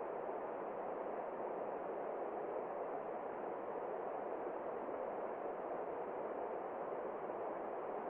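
Rushing water from a cascade or rapids: a steady, even rush with no breaks.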